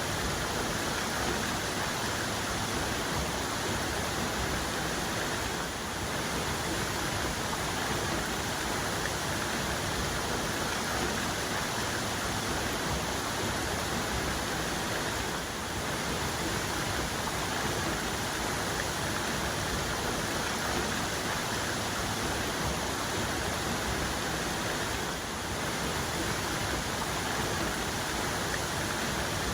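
Waterfall's main cascade: a steady, dense rush of falling water that dips slightly in level three times, about ten seconds apart.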